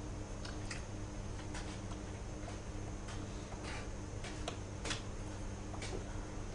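Room tone with no voice: a steady low hum under scattered small clicks and taps, one a little louder about three quarters of the way through.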